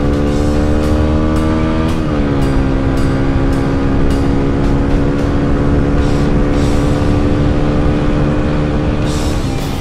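A motorcycle engine pulling hard under full acceleration, shifting up about two seconds in, then holding a steady, slowly climbing note.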